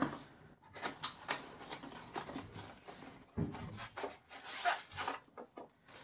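Cardboard packaging being handled and opened, and a plastic-wrapped vacuum accessory taken out of it: scattered light rustles and taps, with one duller knock about three and a half seconds in.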